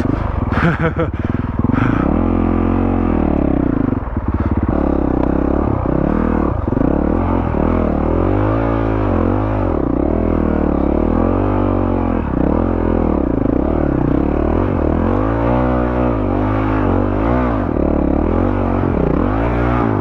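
Honda CRF450RL's single-cylinder four-stroke engine, breathing through a Yoshimura RS-4 full exhaust, revving up and down over and over as the bike is ridden off-road, its pitch rising and falling every second or two. A few sharp clicks near the start.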